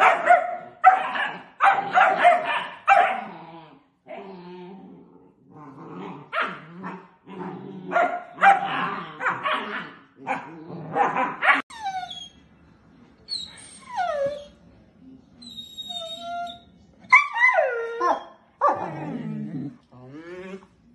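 Puppies play-fighting, barking in quick runs of short barks, then high-pitched whines and yips that fall in pitch in the second half.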